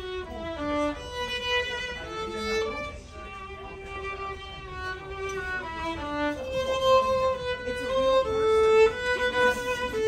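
Solo violin played live, a slow melody of smoothly bowed, held notes, over a low steady rumble of room noise.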